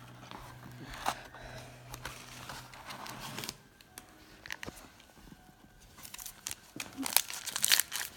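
Foil trading-card pack wrapper being torn open and crinkled, with cards rustled and set down on a table. The crinkling grows dense and loud near the end.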